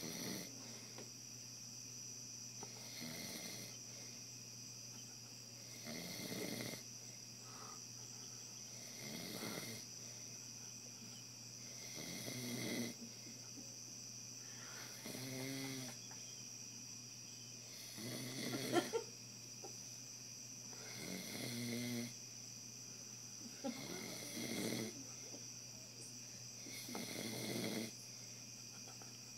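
A man snoring in his sleep: about ten snores, one every three seconds or so, some with a low buzzing rattle.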